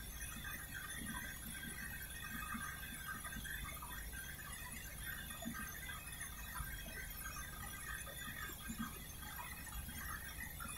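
Siemens iQ100 front-load washing machine's drum motor running on the spin programme: a steady low hum with short, irregular high-pitched chirps. The repairer puts this noise down to a faulty motor that will have to be replaced.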